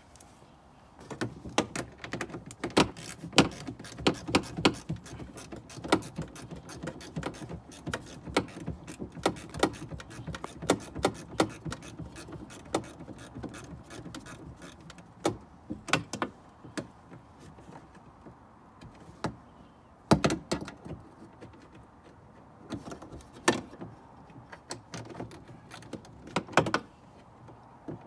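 Ratchet with a 10mm socket loosening a nut inside a truck door: irregular clicking and metallic knocks in short runs, with pauses between strokes.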